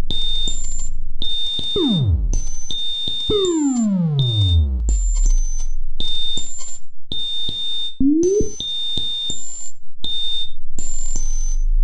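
The homemade 'Off the Dial' SynthEdit software synthesizer playing sci-fi effects: a repeating pattern of short hiss bursts topped with brief high beeps, crossed by falling zaps. The longest zap slides down from about three to five seconds in, and a short rising sweep comes about eight seconds in.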